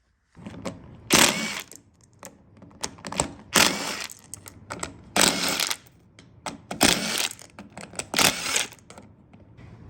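Metal clanking and rattling of hand tools and go-kart parts during a teardown: about five short bursts a second or so apart, with lighter clicks between them.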